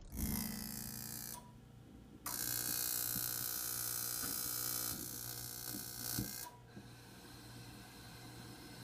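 Fan heater starting up: a steady hum with a few clicks, and a rush of air that runs briefly, stops for about a second, comes back for about four seconds, then drops away to a lower hum.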